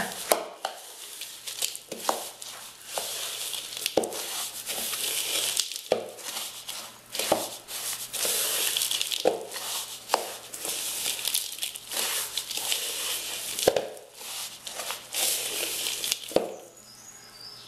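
Hand mixing a crumbly mass of crushed biscuits and peanuts with chocolate powder and condensed milk in a plastic bowl: dry crunching and rustling, with a soft knock every second or two.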